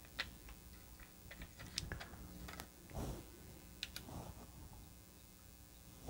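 Faint, irregular small clicks and light handling noise from a handheld chip tester as its buttons are pressed to run a test on a chip locked in its ZIF socket.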